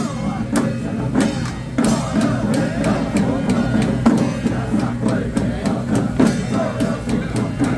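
Loud percussion music from a temple procession troupe: frequent, uneven drum and gong strikes over a dense, steady low accompaniment.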